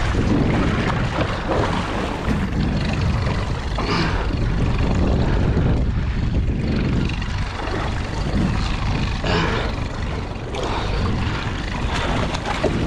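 Wind buffeting the microphone over water sloshing against a small boat's hull, with a few brief splashes.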